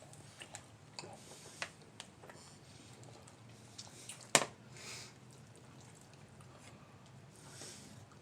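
Quiet chewing and eating sounds, with scattered small clicks and one sharper click about four seconds in.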